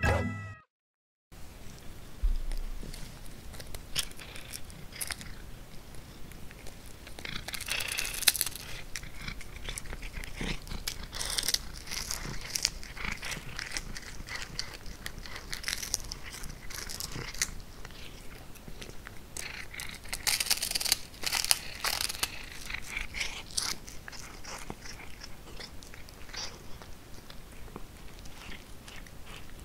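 Norwegian Forest cat biting and chewing a capelin held out by hand, heard up close: irregular crunchy bites and chewing clicks, with busier stretches of crunching.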